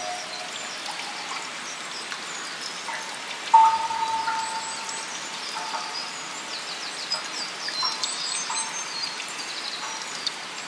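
Ambient soundscape of Yakushima field recordings mixed with soft electronic tones. Steady sound of water, with small birds chirping in short high calls through the middle and end. A single bell-like tone strikes and rings on about three and a half seconds in, the loudest moment.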